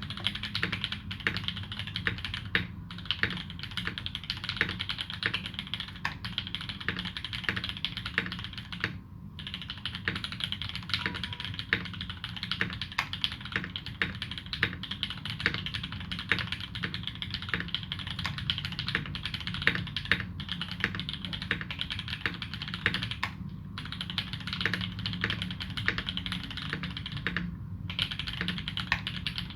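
Continuous typing on a UTD360C custom mechanical keyboard fitted with modded Alpaca v2 linear switches, GMK Dolch keycaps and tuned Cherry screw-in stabilizers: a dense run of keystroke clacks, broken by a few short pauses.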